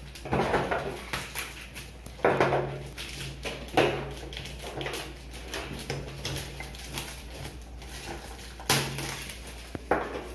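Clear plastic shrink wrap crinkling in several bursts as it is pulled off a wooden box, with a few sharp clacks of wooden toy blocks.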